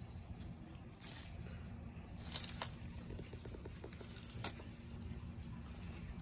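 Sulcata tortoise biting and tearing at a head of romaine lettuce: a few short, crisp crunches over a low, steady background rumble.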